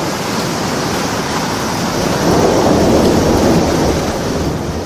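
Muddy floodwater rushing down a swollen river in a loud, steady torrent, swelling louder about two seconds in.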